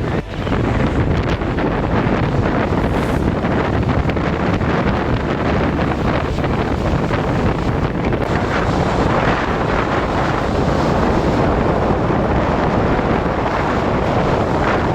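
Strong storm wind buffeting the microphone in a steady, loud rumble.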